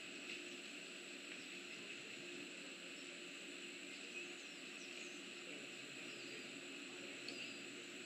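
Steady outdoor insect chorus at a summer pond, with a few faint, short high chirps over it.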